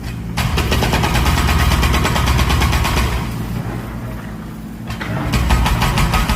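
Mini excavator's diesel engine running, with a hydraulic breaker hammering rapidly on masonry in two spells and a pause of about two seconds between them.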